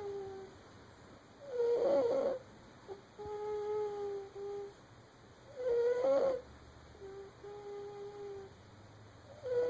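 Sleeping baby snoring: a rough snore about every four seconds, three in all, each followed by a softer, steady humming tone on the other half of the breath.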